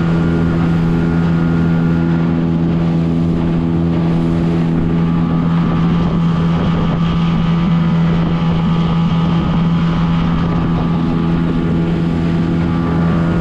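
Outboard motor of a small fishing boat running steadily at cruising speed, its hum holding one even pitch.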